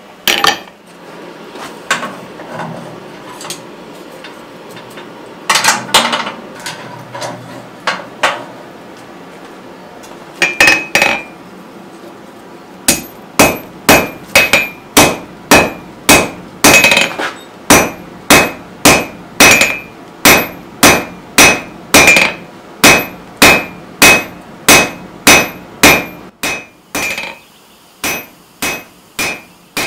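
Hand hammer striking red-hot steel bar on a steel anvil, each blow ringing. A few scattered blows come first, then a steady run of nearly two blows a second, with softer blows near the end.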